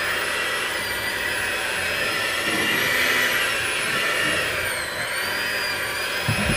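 Black & Decker Performance Helix hand mixer running steadily with its dough hooks kneading bread dough, a steady motor whine. The whine sags in pitch for a moment a little before five seconds in as the dough drags on the hooks, then recovers, and a few low knocks come near the end.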